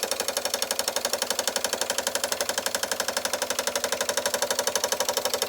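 Doll & Co 348/7 toy steam engine running fast with a rapid, even beat of about a dozen strokes a second.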